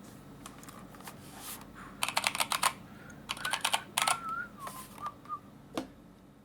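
Typing on a Keychron K2 mechanical keyboard with brown switches and PBT keycaps: quick runs of key clicks about two seconds in and again about three and a half seconds in, then scattered single keystrokes. A faint wavering whistle-like tone sits under the middle of the typing.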